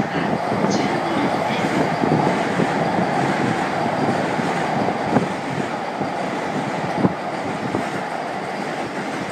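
Electric commuter trains running past: a green-striped JR Yamanote Line train rolling along the near track with a steady rumble, with a red Keikyu train moving on the track behind it. Two sharp knocks sound partway through.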